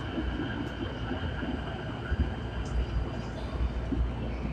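Inside a JR East E233-1000 series electric train's motor car: low rumble of the wheels on the rails with small uneven bumps and a steady, level electrical whine, as the train comes into a station to stop.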